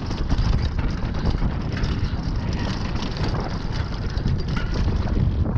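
Mountain bike descending a dirt trail at speed: tyres rolling over the ground and the bike rattling over bumps, with wind buffeting the microphone.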